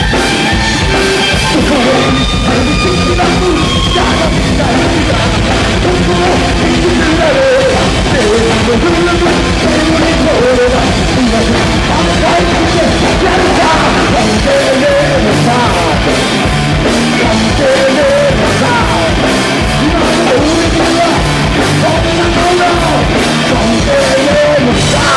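Live heavy punk-rock band of guitar, bass and drums playing loud and fast, with shouted vocals over it.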